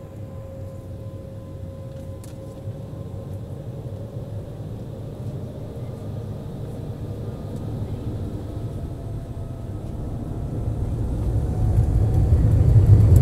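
Jet airliner's engines spooling up for takeoff, heard from inside the cabin: a faint rising whine over a low rumble that grows much louder over the last few seconds.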